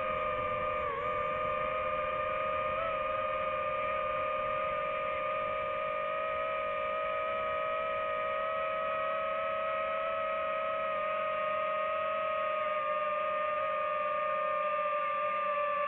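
Steady high whine of a quadcopter drone's motors and propellers, its pitch dipping briefly about a second in and shifting slightly as the drone manoeuvres.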